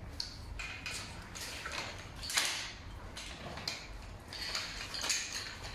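A string of separate clicks, knocks and rattles from an Action 2 manual wheelchair's metal frame and parts as it is handled, the loudest knock about two and a half seconds in.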